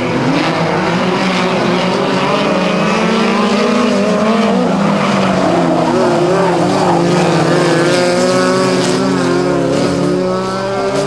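Several dirt-track midget race cars' engines running hard at high revs, overlapping, their pitch rising and falling as they go through the turns, with a quick rise in revs near the end.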